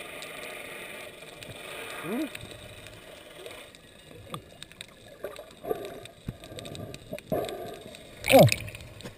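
Muffled underwater sound picked up through a sealed GoPro dive housing: a faint steady hiss with scattered short gurgling blips that slide in pitch. A louder, falling gurgle comes near the end.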